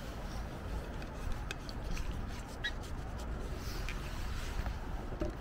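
Faint rustling and a few light clicks as camping gear is handled and packed up, under a steady low rumble.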